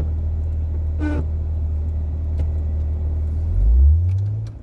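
Vehicle engine and drivetrain rumble heard from inside the cab while driving, steady and low, swelling and rising in pitch about three and a half seconds in, then dropping away.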